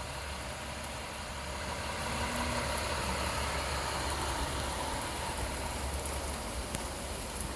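A vehicle engine idling: a steady low rumble under an even hiss.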